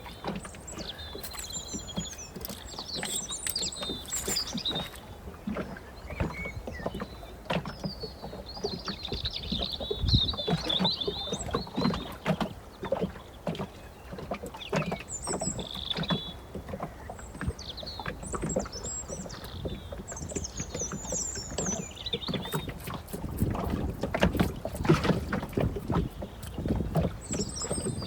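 Water lapping against a small boat's hull, with small irregular knocks throughout and a sharper one about ten seconds in. Birds chirp and warble on and off over it.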